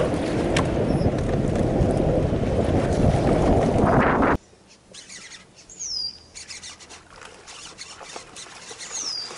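Wind buffeting the microphone, which cuts off abruptly about four seconds in. After that it is much quieter, with two short, high, falling bird whistles about three seconds apart.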